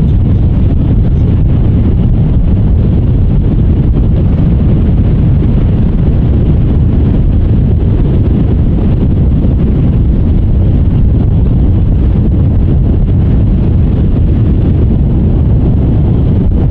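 Strong wind buffeting the microphone in a steady, loud rumble, over the tour boat's engine running steadily underneath.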